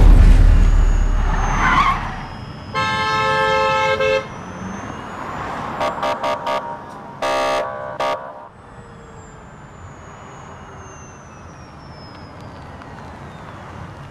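A deep low rumble fades out over the first couple of seconds. Car horns then honk: one long blast, a quick string of short toots, and two more blasts. After that comes a quieter steady street hum with a faint high tone slowly falling in pitch.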